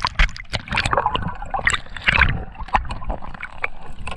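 Water sloshing and gurgling around a diver's action camera at and just under the sea surface, with many irregular clicks and knocks while a crayfish is pushed into a mesh catch bag hanging under a float.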